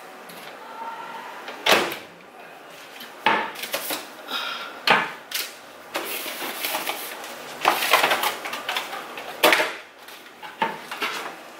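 Things being moved about in a kitchen cabinet: several sharp knocks and clatters, a second or two apart, as a roll of aluminum foil is taken out.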